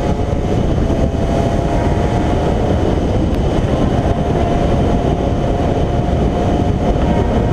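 Quad bike engine running hard at road speed, its note climbing slightly as it pulls, under heavy wind noise on the microphone.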